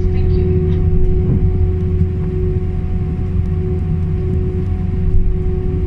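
Airbus A319-111's CFM56 engines heard from inside the cabin during a ground taxi: a steady low rumble with a steady hum tone over it.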